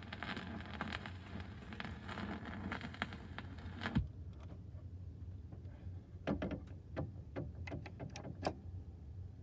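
Vinyl record playback after the music ends: surface hiss and crackle, then a single thump about four seconds in, after which the hiss drops away. A low hum and a scatter of clicks remain.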